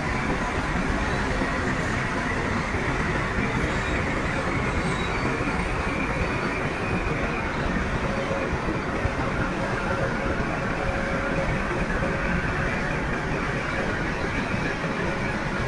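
Crawler bulldozer working: a steady heavy diesel engine drone with a faint metallic squeal over it.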